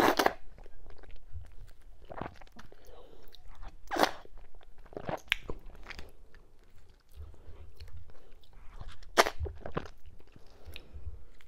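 Close-miked eating sounds: wet chewing with several sharp mouth smacks and sucks as fufu and slimy okra-and-ogbono soup are eaten from the fingers.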